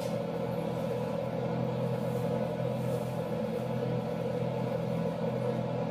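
Wall-mounted hotel hair dryer running steadily, a continuous even hum and blowing noise.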